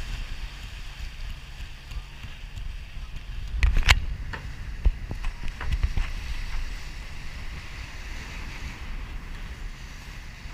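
Wind buffeting the microphone and water rushing past a sailboat under way, a steady low rumble and hiss. A few sharp knocks stand out about four seconds in and again a second or two later.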